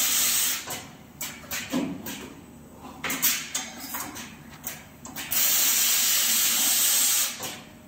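Automatic diamond saw blade laser welding machine at work. There are two loud bursts of hissing, each about two seconds long: the first stops about half a second in, and the second starts about five seconds in. Between them are short mechanical clicks and knocks from the machine.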